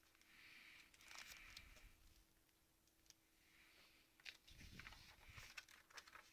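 Faint rustling of plastic card-sleeve pages being turned in a ring binder, in two bouts, with a few soft clicks and a low thump about halfway through.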